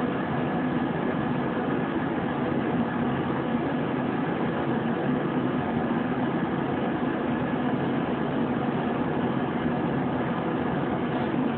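Steady machine noise: a motor or fan running with a constant low hum and hiss.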